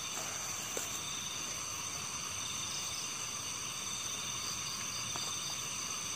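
Night insects chirring steadily, a high drone over a background hiss, with a faint tick just under a second in.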